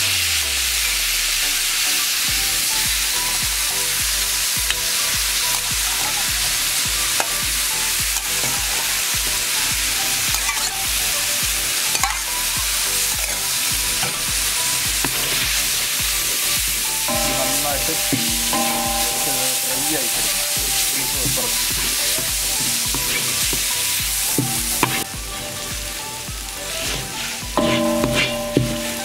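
Boiled beef boti (tripe) sizzling loudly in hot coconut oil and masala in an iron wok as it goes in, then stirred and scraped with a wooden spatula. The sizzle eases somewhat about 25 seconds in.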